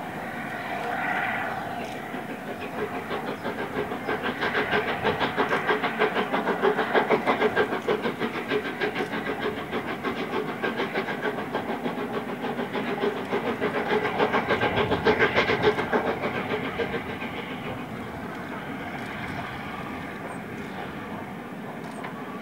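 LNER A4 class Pacific steam locomotive working a passenger train at speed, with a rapid, even beat of exhaust and wheels. It swells in over the first few seconds and fades away after about seventeen seconds.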